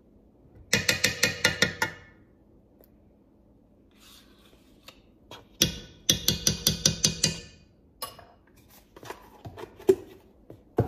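A metal spoon rapped quickly against the rim of a metal soup pot to knock sour cream off it: two runs of about eight ringing taps, each just over a second long. Lighter clicks and knocks follow near the end.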